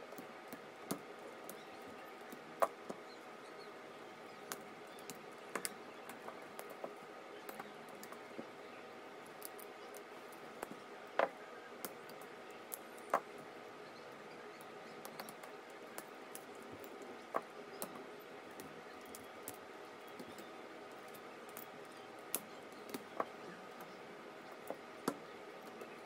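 Irregular sharp metallic clicks and snaps, a few louder than the rest, as a flathead screwdriver and pliers pry spot-welded nickel strips off 18650 cells in a plastic cell holder. A steady hum runs underneath.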